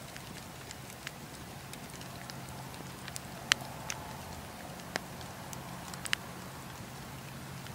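Wood campfire burning: a steady low sound of flames with scattered sharp crackles and pops from the logs, the loudest about three and a half seconds in.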